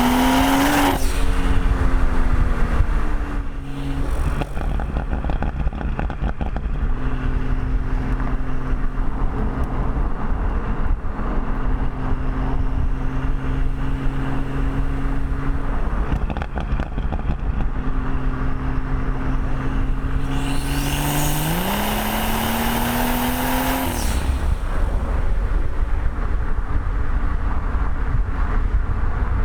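BMW M140i's B58 3.0-litre turbocharged inline-six through a resonator-deleted exhaust. A full-throttle pull ends about a second in and the revs fall away, then the engine holds a steady cruising drone. About two-thirds of the way through, the revs climb again for about three seconds under hard acceleration and drop off suddenly.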